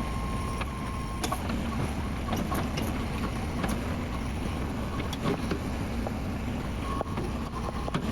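Cat 420F backhoe loader's diesel engine running steadily, with irregular clicks and knocks over it and a steady high whine for the first second or so.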